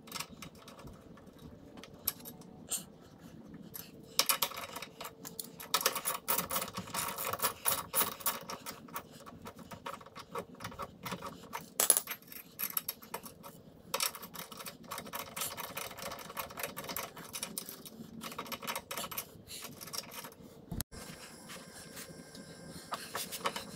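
Sped-up sound of hand tools working on a bare wheel hub while wheel studs are fitted: rapid metallic clicking and clinking in two long dense runs, sparser in between and near the end.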